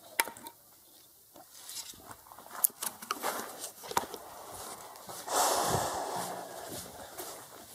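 Footsteps scuffing on a rough floor with rustling close to the microphone and a few sharp clicks; a louder stretch of rustling and scraping comes about five seconds in.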